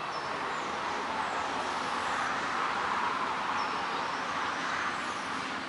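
A road vehicle passing, its rushing noise swelling to a peak around the middle and fading near the end, with birds chirping faintly.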